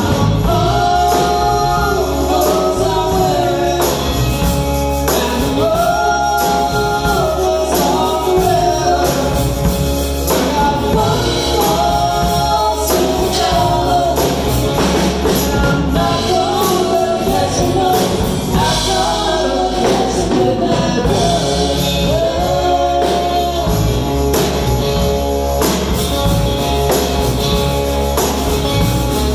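A live rock band playing a song: a woman sings the lead vocal over electric guitars and a drum kit, in phrases that break every few seconds over a steady groove.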